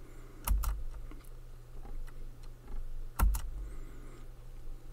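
Two quick double clicks on a computer, about three seconds apart, each with a faint low thump, over a steady low hum. The clicks come as the pen annotations are cleared and the slide moves on to the next problem.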